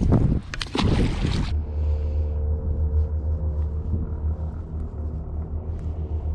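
Boat motor running steadily with a low rumble and a faint steady hum above it, after a burst of loud noise across all pitches that stops about a second and a half in.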